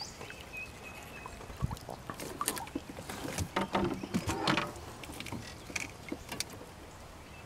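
Scattered light knocks and clicks of fishing rods and a spinning reel being handled against a small boat's hull, over a low hiss.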